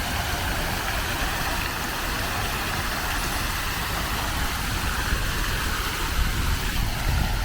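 Steady city road-traffic noise: a low rumble under an even hiss, with no single vehicle standing out.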